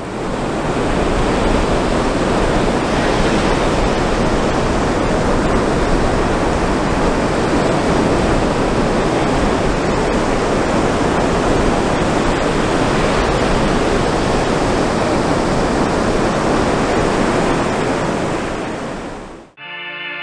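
Ocean surf breaking on a sandy beach: a steady, loud rush of waves that fades in at the start and cuts off just before the end, where guitar-led music begins.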